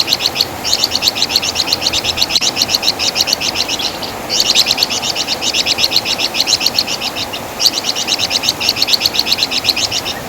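Javan fulvetta (Wergan Jawa, 'Flamboyan') singing: rapid strings of short, high chirping notes, about seven or eight a second, with three brief breaks between phrases.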